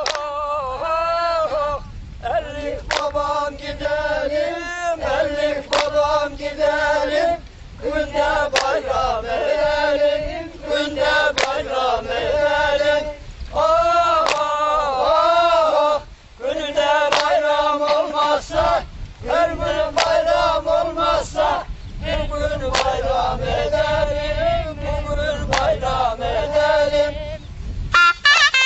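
A group of voices singing a folk song together in a chant-like style, in phrases with brief pauses between them.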